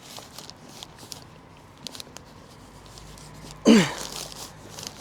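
A short, loud human vocal burst falling in pitch, like a sneeze or a sudden exclamation, about three and a half seconds in, over faint clicks of handling.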